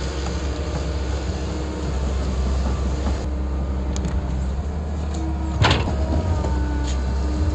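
Kobelco SK120 excavator's diesel engine running steadily, with one sharp clank about five and a half seconds in and a few lighter knocks.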